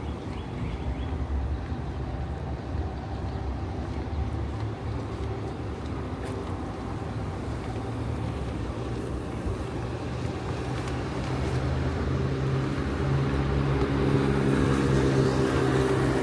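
Road traffic: vehicle engines running with a steady low rumble, one engine hum growing louder over the last few seconds.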